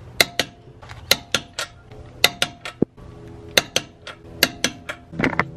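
Background music: sustained held chords under sharp, clicking percussive hits that come in pairs about once a second.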